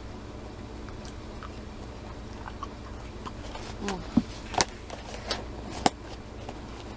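People eating: biting and chewing food, with a few sharp clicks and taps in the second half and a brief voiced hum about four seconds in.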